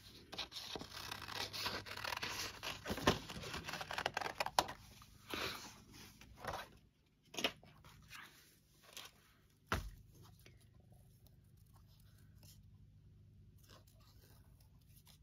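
Paper being handled and torn: dense rustling and tearing for about five seconds, then scattered short rustles and taps. A single sharp knock comes near the middle, and after it the room goes quiet.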